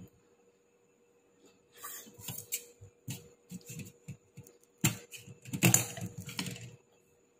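Someone eating a meal: irregular crunching and small clicks of chewing and of food being handled on a plate, in short clusters with pauses.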